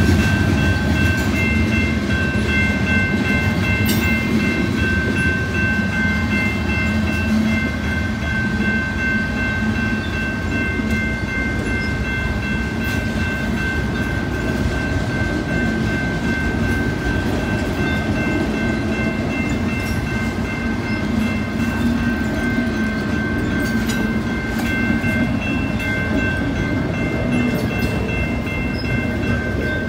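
Freight cars of a CSX mixed freight train rolling past at steady speed, wheels clacking over the rail joints with a continuous low rumble. Steady high-pitched ringing tones sit over the rumble.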